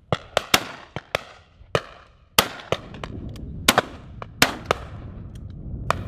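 About a dozen shotgun shots in quick, uneven succession from several guns firing at driven partridges: some close and loud, others fainter.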